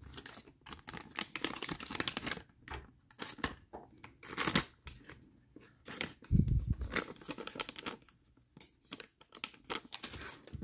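Small clear plastic zip-lock bag crinkling and rustling as it is handled and pulled open, in irregular crackly bursts. A dull thump about six seconds in.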